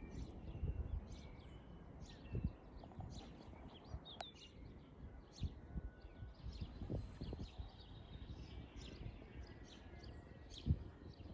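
Small birds chirping in short, high, repeated calls over a low outdoor rumble, with a few soft low bumps.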